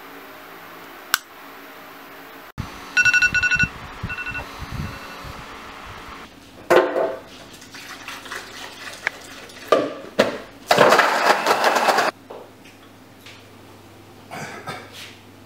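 A string of short household sounds: an electronic alarm beeping in rapid pulses, then liquid splashing and pouring, and a loud rush of water lasting about a second.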